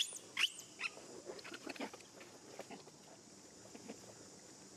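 Baby long-tailed macaque giving a quick series of short, high-pitched arching squeals in the first second, followed by soft scattered crackling and rustling.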